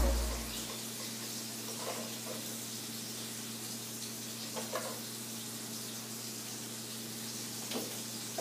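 Steady faint sizzle of small rockfish pan-frying in oil, over a steady low hum, with a few soft ticks.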